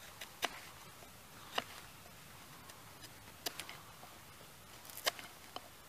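Enzo PK70 slip-joint folding knife being handled: about seven short, sharp clicks at irregular intervals over a faint background.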